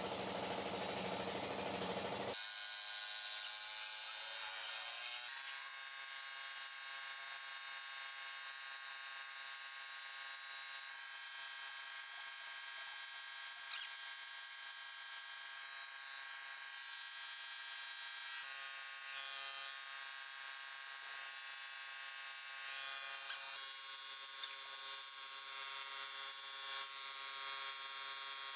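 A rough, louder noise cuts off about two seconds in. It gives way to an electric motor's buzz that rises in pitch over the next few seconds and then runs steadily: the air compressor powering a paint spray gun.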